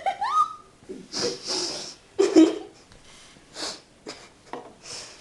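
A person gulping air and straining to work up a burp, heard as several short noisy breaths, sniffs and snorts, the loudest a little over two seconds in. A brief rising squeak opens it.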